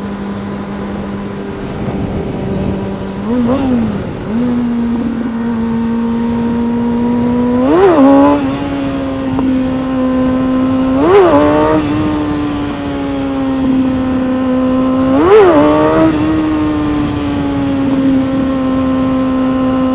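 Motorcycle engine running steadily under way, its note slowly climbing, with four short flares in revs that drop straight back. The rider puts the flares down to the rear tire spinning without grip on wet pavement.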